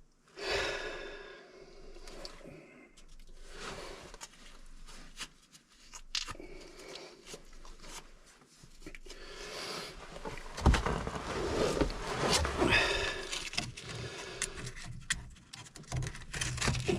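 Scattered scrapes, clicks and knocks of hands and tools working on a PVC pipe joint, with a sharp thump about ten and a half seconds in and busier rubbing and handling noise after it.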